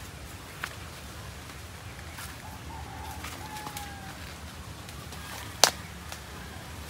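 Footsteps on a dry, leaf-strewn dirt path through a cornfield, with light clicks and one sharp snap underfoot about two thirds of the way through. Faint bird calls are heard in the middle.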